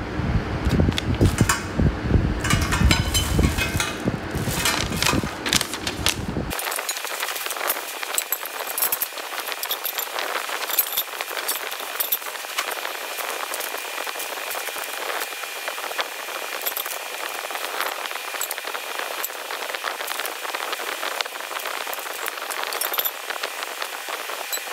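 Handling sounds from unpacking a rack: a paper instruction sheet crinkling over a low rumble, which drops out abruptly about six seconds in. After that come many small clinks and rattles of hollow metal tubes from a laundry organizer frame, over a crackly rustle of plastic wrapping.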